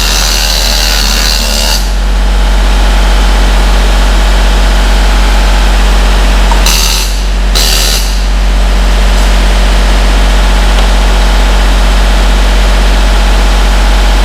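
Steady, loud low hum of a welding machine under load, with a harsh hissing arc for the first couple of seconds and two short bursts of it about halfway through.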